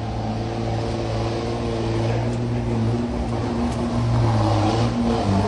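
Diesel engine of a Volkswagen Constellation truck working hard under load as it climbs through deep mud. The engine note is steady, dips briefly twice, and grows gradually louder as the truck approaches.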